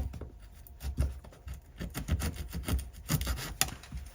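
Hand work on wood: irregular light taps, clicks and scrapes of a small hand saw and hands on glued wooden filler in a wall panel.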